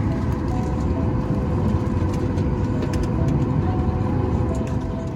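Steady low rumble and hiss of cabin noise inside a Boeing 737 MAX 8 airliner, with a few faint thin tones and light clicks on top.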